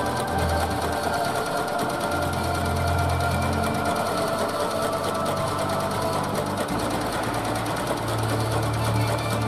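Delzer single-cylinder petrol engine of a home-built generator running steadily in sub-zero cold after a cold start, its low hum shifting in pitch a few times.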